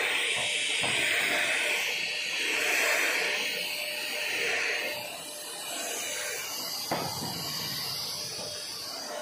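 Corded stick vacuum cleaner running while pushed back and forth over artificial turf: a steady hissing rush of air over a thin motor whine, swelling and fading with the strokes and getting quieter after about five seconds. One short tap about seven seconds in.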